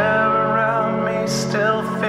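A song with acoustic guitar. A singer holds one long wavering note for about the first second and a half, then starts a new phrase near the end.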